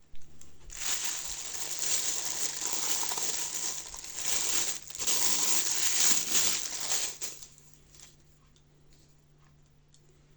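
Packaging crinkling and rustling as it is handled and unwrapped, in two long stretches with a short break near the middle. After about seven seconds it drops to a few faint clicks and taps.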